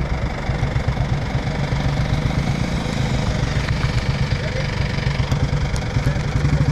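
Royal Enfield motorcycle engine running with a steady, rapid, even thump, a little louder near the end.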